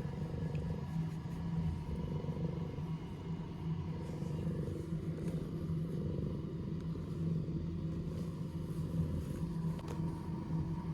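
Domestic cat purring close to the microphone, a continuous low rumble that swells and eases with each breath.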